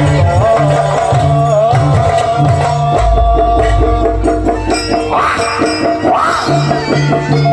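Javanese jaranan ensemble music playing loudly: a sustained, wavering melody line over repeated gong-chime figures and low drum strokes. Two short bright swells rise above it about five and six seconds in.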